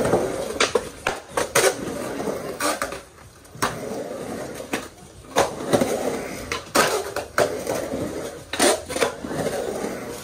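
Skateboard wheels rolling and carving around a concrete bowl: a rolling rumble that swells and fades as the board pumps through the turns, broken by many sharp clacks and knocks from the board and trucks.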